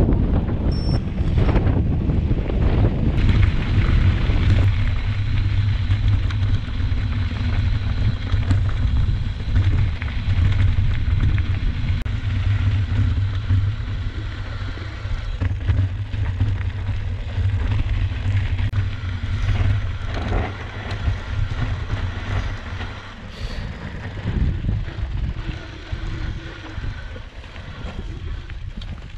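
Wind buffeting the camera's microphone over the low rumble of mountain-bike tyres on a loose gravel road during a fast downhill run. It eases off over the last few seconds.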